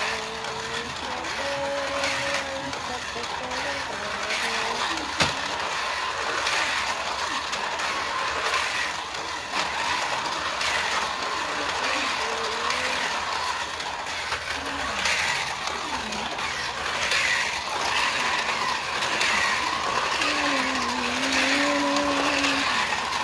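Small electric slot cars on a plastic 1:43-scale track, their motors whirring as they lap. The sound swells every second or two as a car passes close and falls away again, and a faint whine bends up and down with the throttle.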